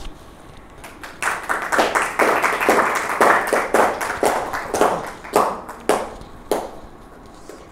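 Audience applauding: a round of hand-clapping that starts about a second in and thins out to a few last claps near the end.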